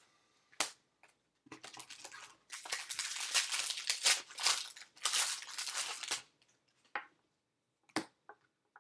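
Foil trading-card pack wrapper being torn open and crinkled, a dense crackling rustle over several seconds. A sharp click comes just before it, and a few short clicks follow near the end.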